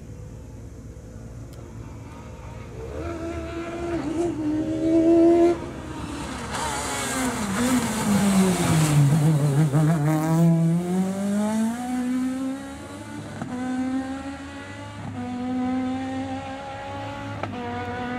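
Peugeot 306 rally car engine revving hard. Its note falls away as it slows for a corner, with a loud hiss of tyre noise in the middle. It then accelerates away, the pitch climbing and dropping back at each of about four upshifts.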